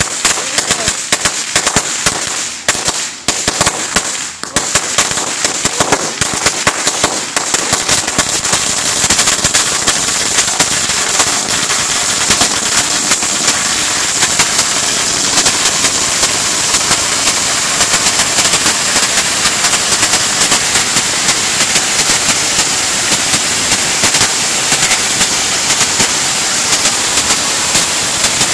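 A 16,000-count firecracker roll going off in a rapid, continuous chain of loud bangs. The bangs come a little sparser and more uneven in the first few seconds, then pack into an unbroken crackling rattle from about eight seconds in.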